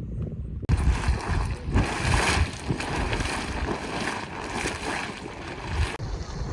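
Steam hissing steadily from a geyser or hot-spring vent, starting abruptly about a second in and dropping away near the end, with wind buffeting the microphone.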